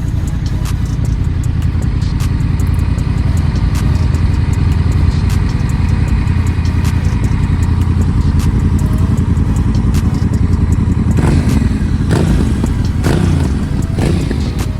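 Honda Rebel 1100's parallel-twin engine running steadily while riding, with a few brief louder swells near the end.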